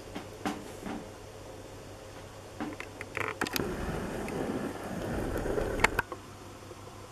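Handling noise: a few light knocks and clicks, then a low rubbing rumble for about two and a half seconds that ends in a sharp click near the end.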